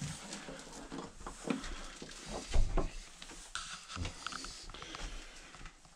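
Scattered soft knocks, thumps and rustles of someone moving about indoors: footsteps and camera handling, the loudest thump about two and a half seconds in, with a few short squeaks about four seconds in.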